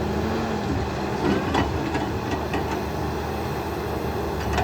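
Backhoe's diesel engine running steadily under work, with a few short metallic clanks and clicks about one and a half to two and a half seconds in.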